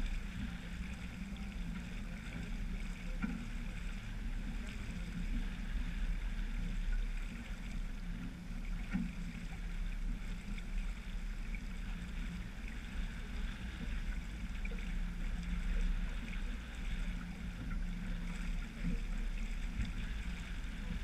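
Sailboat under way: a steady rush of water along the hull and wind over the boat, with a low rumble of wind on the microphone.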